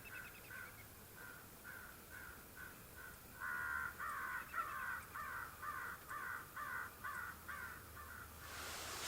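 Crows cawing in a long, evenly paced series of about two calls a second, faint at first and louder from about three and a half seconds in.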